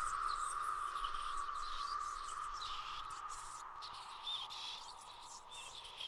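Night-time ambience of chirping insects and birds over a steady high hum, slowly fading.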